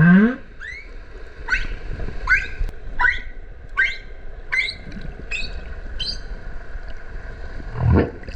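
Humpback whale song recorded underwater. It opens with a loud low call that sweeps upward, then comes a run of about eight short rising chirps, roughly one every three-quarters of a second. Another low rising call follows near the end.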